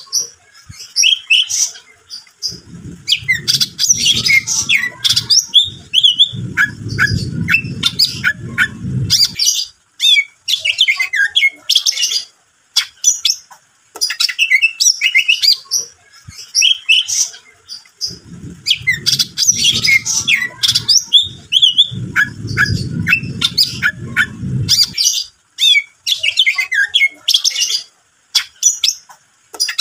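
Greater green leafbird (cucak ijo) singing a loud, rapid, varied song of chirps, trills and squawky notes. Twice, about three seconds in and again at about eighteen seconds, a low rumbling noise runs for several seconds underneath, and the whole passage repeats about halfway through.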